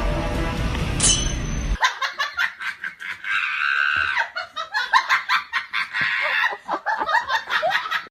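Music for the first couple of seconds, then an abrupt switch to a person laughing in quick, choppy bursts.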